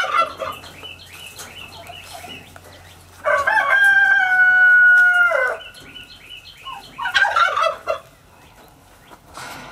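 A rooster crows once about three seconds in, a long held call lasting over two seconds that drops in pitch at the end. Short bursts of turkey gobbling come at the very start and again about seven seconds in.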